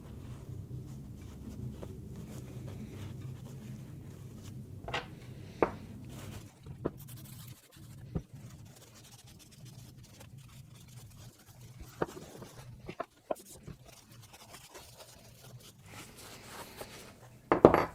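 Rubbing and scraping from hand-cleaning small bicycle pedal parts (bearing races and lock nut), with scattered light clicks and knocks as the metal parts are handled, the loudest knocks near the end. A faint low hum runs under the first seven seconds.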